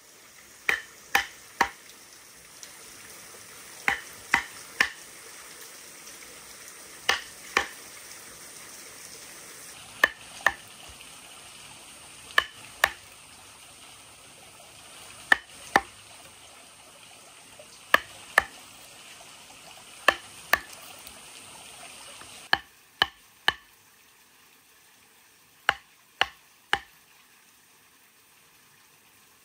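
Wooden mallet striking a wooden-handled chisel cutting into a log: sharp knocks in groups of two or three, every two to three seconds. A steady faint hiss lies underneath and drops away about two-thirds of the way through.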